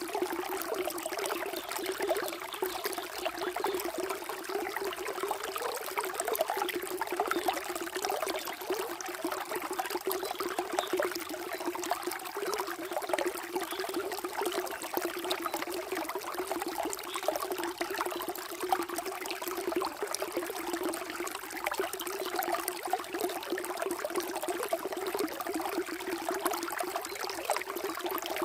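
Flowing water trickling and babbling steadily, with no break or change.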